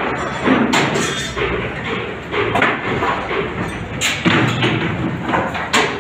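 Construction site noise: a steady din with irregular knocks and thuds, several in a few seconds.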